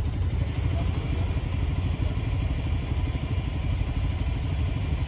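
A steady, low engine rumble with a fast pulsing beat.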